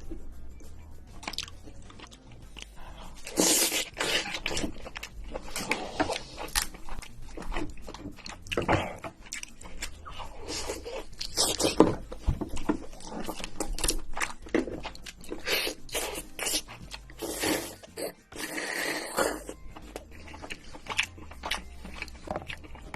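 Red king crab shell being cracked and picked apart close to the microphone, irregular sharp cracks and crunches mixed with chewing and slurping of the meat.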